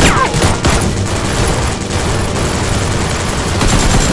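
Continuous rapid gunfire sound effects, dense overlapping shots like a machine-gun volley. Two short falling whistles sound right at the start.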